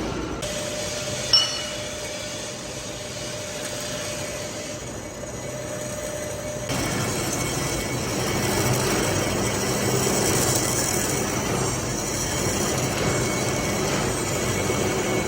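Workshop machinery running steadily, with one sharp metallic clink about a second in. A steady hum drops out around seven seconds in, after which the running noise is louder and fuller.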